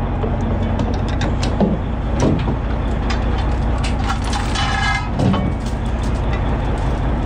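Anchor chain clanking and the steel anchor knocking and scraping as they are hauled up over the bow roller of an aluminium boat. The boat's Detroit Diesel Series 60 engine runs steadily underneath.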